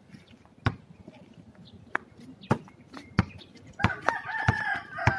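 A basketball bounced on a concrete court, a series of sharp thuds at about one every two-thirds of a second. A rooster crows from about four seconds in, over the bouncing.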